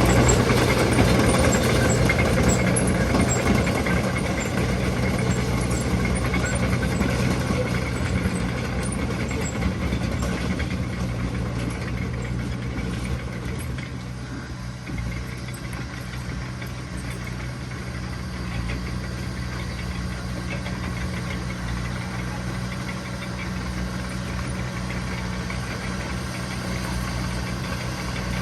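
Heavy diesel engine of earthmoving machinery running steadily, louder for the first few seconds and then easing to a lower steady level.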